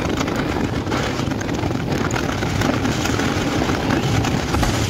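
Kawasaki sport bike running steadily at riding speed, engine and wind noise on the microphone blending into one even rush.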